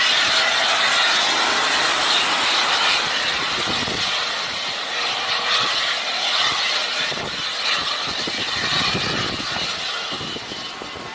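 Boeing 737 jet airliner's turbofan engines on final approach: a steady, loud jet rush that fades somewhat near the end. Uneven gusts of wind buffet the microphone throughout.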